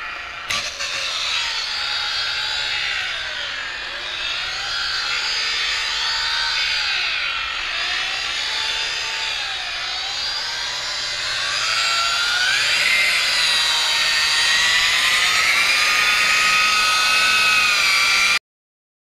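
Electric rotary polisher running with a foam pad on a plastic taillight lens. Its motor whine dips and recovers in pitch again and again as the pad is pressed and moved over the lens, then climbs higher about two-thirds of the way through. There is a sharp click just after the start, and the sound cuts off suddenly near the end.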